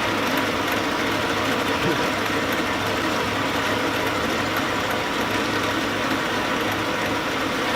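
A machine running steadily: a constant low hum under an even rushing noise, with no change in speed or load.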